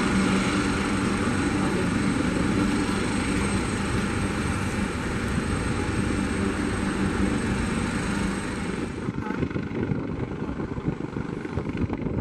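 Helicopter running on the ground with its rotors turning: a steady rush of turbine and rotor noise with a thin high turbine whine, which drops away about nine seconds in, leaving a quieter, duller rotor sound.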